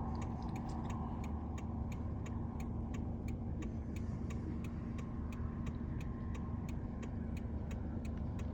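Steady low motor-like hum with a constant tone, with sharp regular ticks about three times a second.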